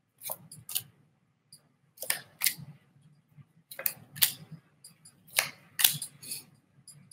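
Tarot cards being shuffled and drawn by hand: clusters of crisp snaps and flicks about every one and a half seconds, with quiet between.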